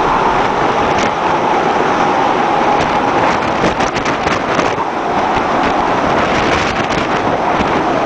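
Storm wind blowing hard across the microphone, a steady loud rush, over heavy seas breaking against a supertanker's hull. Short crackles come and go, most of them between about three and five seconds in.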